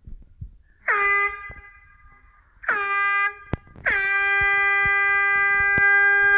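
Air horn blasting three times: two short honks, then a long one held for nearly three seconds. Each blast starts with a quick downward swoop in pitch before settling on a steady tone.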